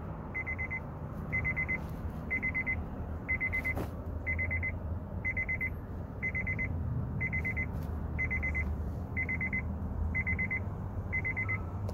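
An electronic warning beeper sounds a half-second buzzy tone about once a second, over and over, above a steady low hum.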